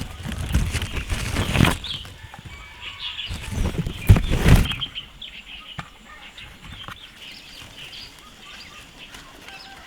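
Two loud bursts of rustling noise, the first about a second and a half long and the second about a second long, with the louder one about four seconds in. Faint chicken chirps and clucks run beneath.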